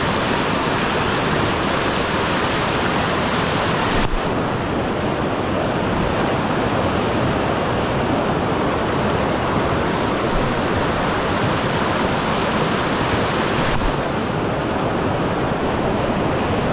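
River rapids rushing over rocks: a loud, steady rush of white water close by. The hiss turns duller about four seconds in and brighter again near the end.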